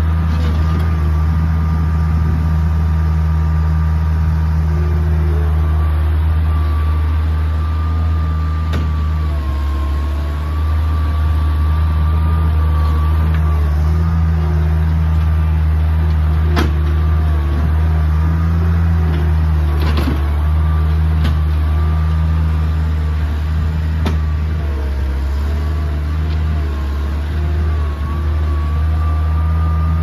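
Bobcat 743 skid steer running under load as it scrapes and pushes dirt. The engine hum is steady, with a higher whine above it that wavers in pitch, and a few sharp knocks come through.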